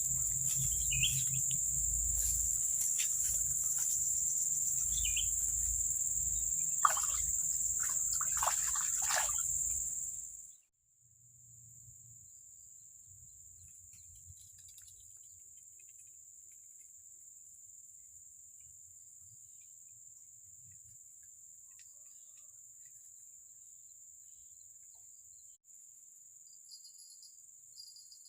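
Steady high-pitched buzzing of insects, with low rumble and a few handling knocks in the first ten seconds or so. About ten seconds in the sound drops off abruptly, leaving a fainter insect buzz.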